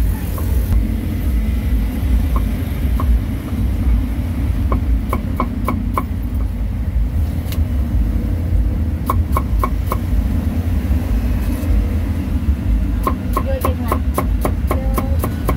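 Steel cleaver slicing cucumber on a wooden chopping block, making three quick runs of sharp knocks. A steady low rumble of street traffic runs underneath.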